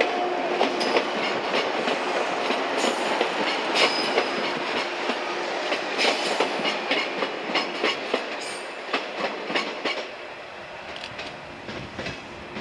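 A 115-series electric train running over the rails, its wheels clicking over the rail joints in quick runs as it passes and pulls away. The clatter grows fainter after about ten seconds.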